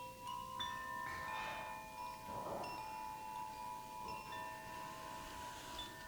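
Metal chimes ringing softly: a handful of bell-like notes of different pitch struck one after another, each ringing on for several seconds so that they overlap.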